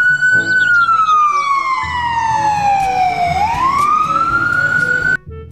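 Ambulance siren wailing: a rising sweep, a long slow fall in pitch, then another rise, cutting off suddenly near the end.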